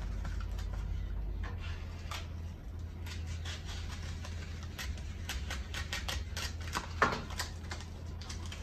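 Utility knife cutting through cardboard: a string of short scratching clicks as the blade works around the inside of a heart shape, with one louder click about seven seconds in.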